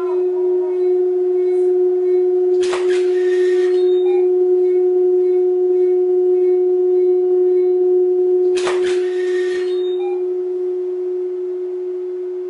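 A steady, unwavering pitched tone held throughout, with two short rushing noises about six seconds apart.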